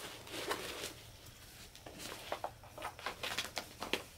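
Woven fabric chafe-guard sleeve rustling as it is bundled by hand and bound with a thin three-strand rope, with a run of short light ticks and scrapes from about two seconds in as the rope is wrapped.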